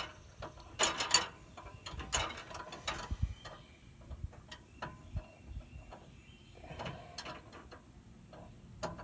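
Ratchet wrench clicking in irregular short runs, loudest about a second in, as it turns a stud that spins in place without backing out of its hole.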